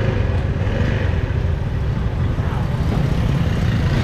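City street ambience: a steady, low rumble of road traffic and motorbikes, with indistinct voices in the background.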